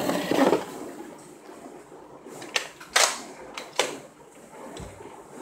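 Three sharp plastic clacks within about a second, the middle one loudest, from a Nerf N-Strike Elite Disruptor dart blaster being primed and fired.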